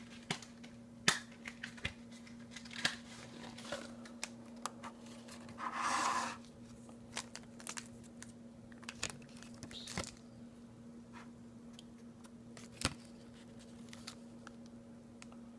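Foil Pokémon booster pack being handled: scattered light crinkles and clicks, with one longer crinkling rustle about six seconds in, over a faint steady hum.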